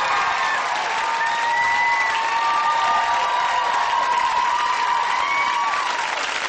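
Studio audience giving entrance applause: steady clapping and cheering, with drawn-out high whoops over it.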